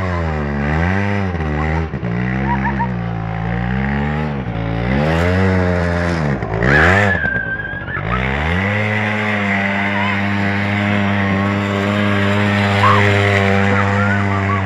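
Aeon Revo R100 ATV's small engine revving up and down repeatedly, climbing to its highest revs about seven seconds in with a brief high squeal, then running at a steady speed.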